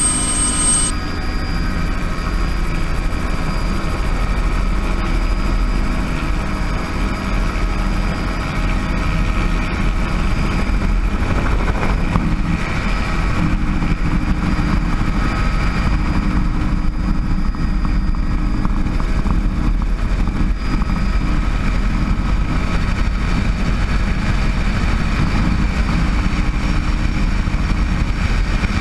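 Bell 206 JetRanger helicopter running steadily: the turbine whine over the low beat of the rotor, unchanging throughout.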